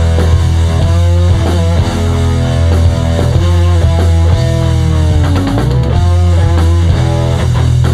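Rock band playing live: loud, steady bass, drums and electric guitar, with a held note sliding down in pitch about five seconds in.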